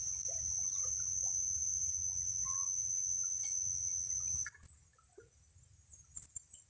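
Insects giving a steady, high-pitched continuous trill that cuts off suddenly about four and a half seconds in, with faint scattered bird chirps and a low rumble underneath.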